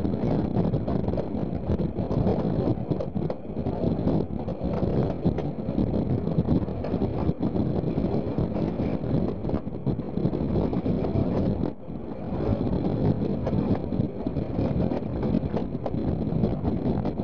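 Steam-hauled passenger train under way, heard from an open carriage window: the steady rumble of the coaches running over the track, mixed with wind buffeting the microphone. The sound briefly drops about twelve seconds in.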